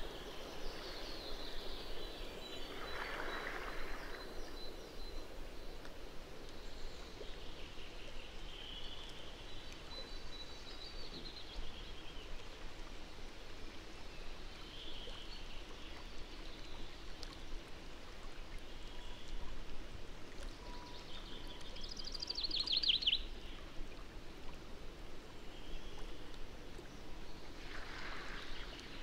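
Steady hiss of wind and rippling lake water, with faint bird calls now and then and a short, rapid trill about three-quarters of the way through.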